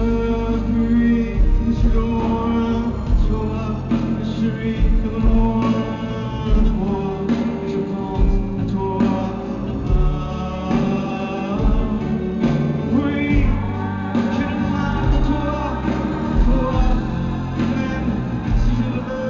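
Live band playing loud rock-pop with piano, bass and drums, and a male voice singing over it. The recording is from the audience.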